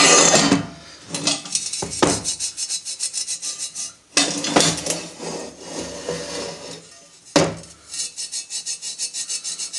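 Abrasive scouring pad wet with isopropanol scrubbing back and forth on the top of a cast aluminium clutch release bearing guide spigot: a rapid, scratchy rubbing at about five strokes a second, cleaning it down for welding. Twice, a sharp knock.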